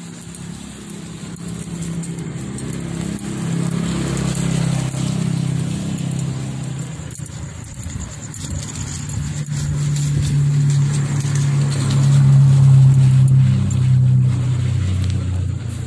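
A car driving slowly along a wet road towards the listener and passing close, its engine hum getting louder to a peak about twelve seconds in and then falling away, over the noise of rain and tyres on the wet surface.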